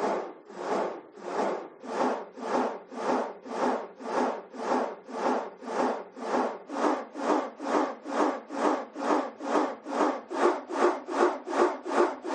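Rhythmic back-and-forth rasping strokes, about two and a half to three a second, getting slightly faster and louder near the end.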